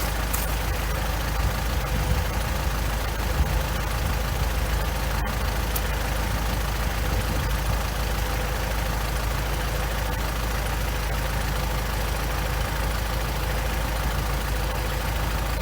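Kubota L4701 tractor's diesel engine running steadily at a low, even pace.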